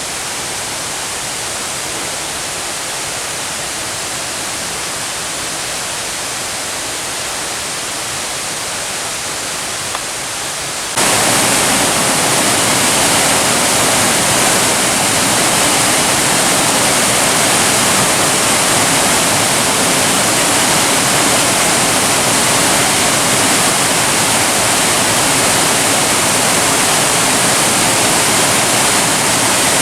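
Rushing water of a mountain stream and waterfalls, a steady rush. About eleven seconds in it jumps suddenly to a louder, brighter rush.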